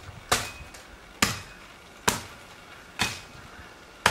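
Five sharp knocks at an even pace of about one a second, each dying away in a brief ring, like steady chopping or striking.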